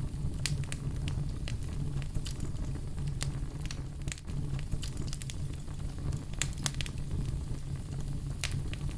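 Wood fire in a fireplace burning with a steady low rumble and irregular sharp crackles and pops from the burning logs.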